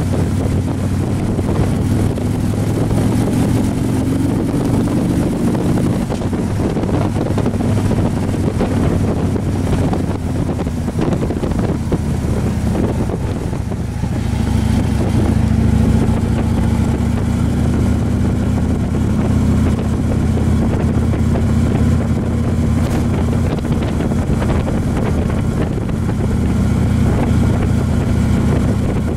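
Motorcycle engine running at road speed with wind rushing over the microphone. The engine eases off about halfway through, then picks back up and holds steady.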